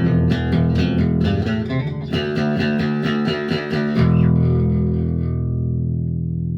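G&L SB-2 electric bass played with a pick through a Fender Rumble 25 bass amp: a run of quick picked notes, then about four seconds in a final note struck and left to ring out and slowly fade.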